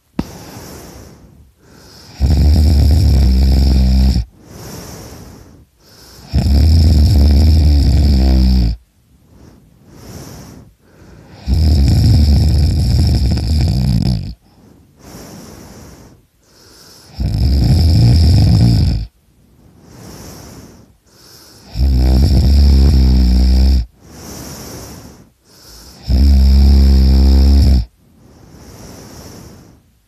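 A person snoring extremely loudly in sleep: six long snores of about two seconds each, coming every four to five seconds, with quieter breaths between them.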